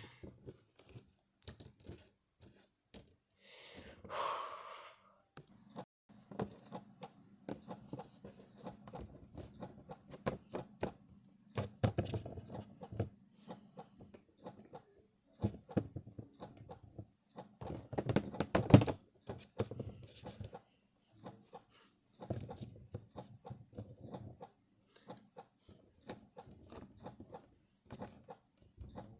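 Faint scattered clicks, taps and rustles of small plastic toy figures and props being handled and moved, with a soft breath-like sound about four seconds in.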